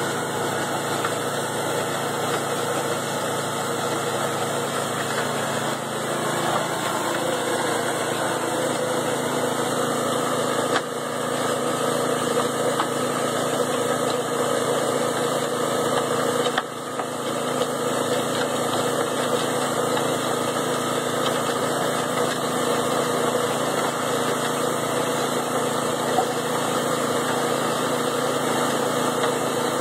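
Vintage Jaeger cement mixer's small engine running steadily, driving the mixer.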